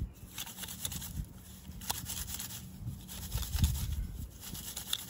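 Thick-steel twig stove being rubbed and twisted against sand, an irregular gritty scraping and crunching of grains on the metal as it is scoured clean of fire residue.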